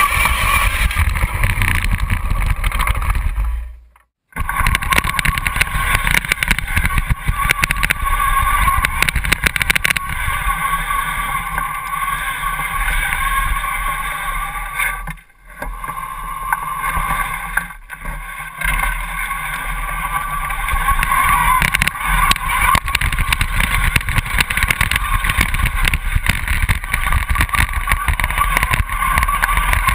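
Homemade radio-controlled tracked vehicle on the move, its drive motors and tracks running with steady mechanical noise, heard close up from the vehicle's own hull. The sound drops out briefly just after four seconds and dips twice more near the middle.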